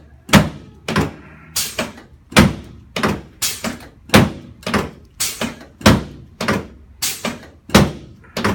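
Regular sharp thunks, about three every two seconds, from chiropractic adjusting equipment striking in a steady rhythm.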